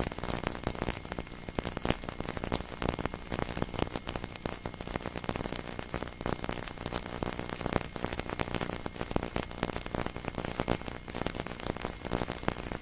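Continuous crackling static: a dense, even hiss packed with small pops and clicks, with no tones or voice.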